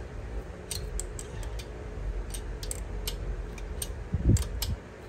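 Irregular small metallic clicks of 7/16 wrenches on a Harley Twin Cam 96 adjustable pushrod, the adjuster being turned bit by bit against its lock nut; a brief low sound about four seconds in.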